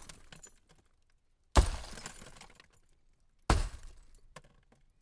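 Car window glass smashed twice, about a second and a half in and again near three and a half seconds, each a sharp crash followed by pieces of glass tinkling as it dies away. The tail of an earlier smash fades out at the very start.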